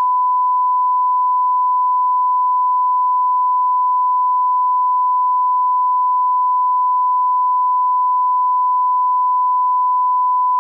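Broadcast line-up tone, a steady 1 kHz reference sine tone played with colour bars at the head of a programme tape to set audio levels. It is one unbroken pure tone at constant loudness.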